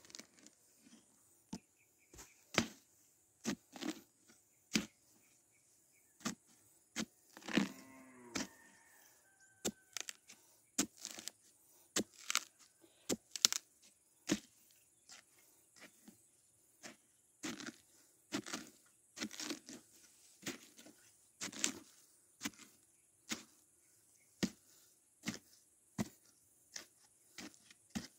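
Dull knocks and crunches of a wooden pole jabbed again and again into the soft, rotten core of a dead buri palm trunk section, digging out the pulp to hollow it: about one strike a second, uneven in strength. A cow moos once about eight seconds in.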